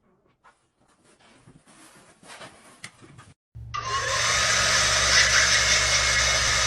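Faint clicks and rustles, then about three and a half seconds in, a loud electric motor with rushing air starts abruptly and runs steadily with a low hum.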